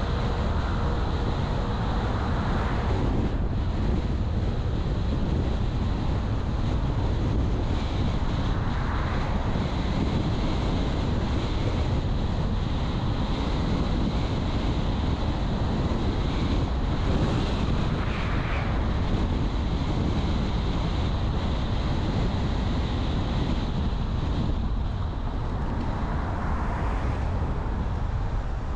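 Steady rumble of road and wind noise from a car driving, swelling briefly a few times.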